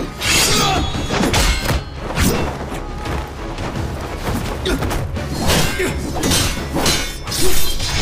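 Action film music under fight sound effects: repeated sharp hits, swooshes and thuds of a sword fight.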